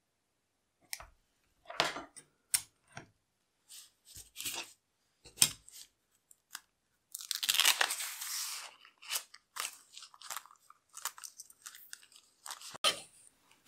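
Hands handling a sheet of clear plastic book-covering film and paper on a work table: scattered light taps and clicks, a longer crinkling rustle from about seven to nine seconds in, then more short rustles and taps.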